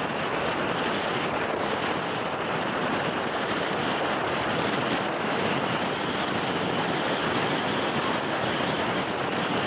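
Steady outdoor noise of wind and choppy lake water, an even hiss with no distinct events.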